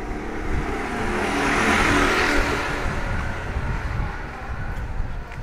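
A motor vehicle passing close by on a narrow street: its engine and tyre noise swells to a peak about two seconds in, then fades away.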